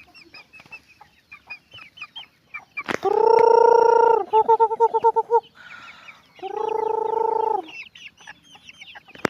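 Flock of chickens: chicks peep continually. An adult chicken gives two loud drawn-out calls, each over a second long, about three and six and a half seconds in, with a run of quick pulsed clucks between them.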